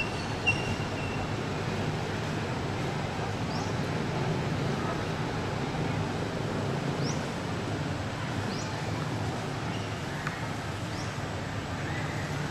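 Outdoor ambience: a steady low hum with a few short, high, rising chirps every couple of seconds, and a brief click about half a second in.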